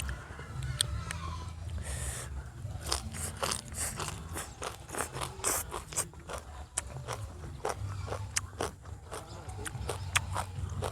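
Close-up eating sounds of someone chewing oysters: a quick, irregular run of wet clicks and smacks from the mouth, over a steady low hum.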